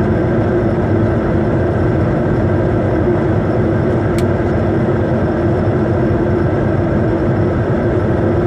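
Steady cockpit noise of a Challenger 350 business jet on final approach: airflow and engine noise with a steady low hum. A faint tick about four seconds in.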